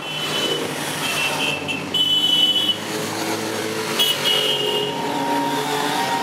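Motorcycles in a convoy riding past one after another, their engines running. Several short high-pitched tones sound over them, about a second in, at about two seconds and at about four seconds.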